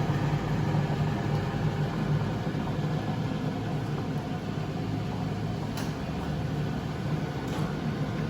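A steady low mechanical hum, like a motor or fan running, over a constant rushing noise, with a faint click about six seconds in.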